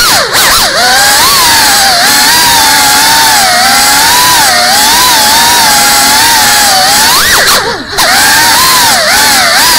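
Brushless motors and propellers of a GEPRC CineLog35 3.5-inch ducted cinewhoop quadcopter whining in flight, heard up close from the onboard camera. The pitch wavers constantly with throttle. Near the end it climbs sharply, and the sound drops out for a moment before the whine picks up again.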